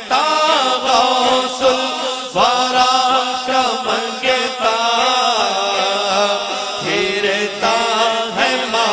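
A man's solo voice singing an Urdu devotional manqabat into a microphone, in long drawn-out notes that bend and waver, broken by short breaths.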